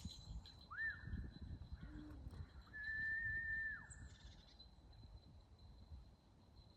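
Two whistles: a short one that rises and falls, then a long, level one held for about a second, calling an animal in.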